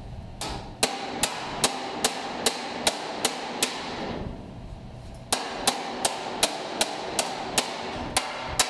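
Wooden-handled hammer striking a hand chisel held against the flange of a steel body panel, in steady, even blows at about two and a half a second. The blows pause for about a second and a half near the middle, then start again at the same pace.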